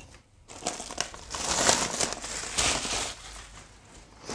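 Packaging crinkling and rustling as it is opened by hand, in an irregular run that starts about half a second in, is loudest in the middle and dies down near the end.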